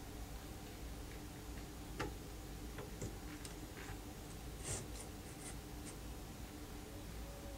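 Scattered small clicks, knocks and scraping as a Toyan L400 four-cylinder model engine is set down and shifted into place on a metal RC car chassis plate, the sharpest knocks about two seconds in and just before five seconds. A steady low hum lies underneath.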